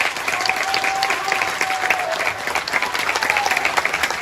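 Large arena crowd clapping steadily, many fast overlapping claps, with a single held high note rising above it from about half a second in, dropping away about two seconds in.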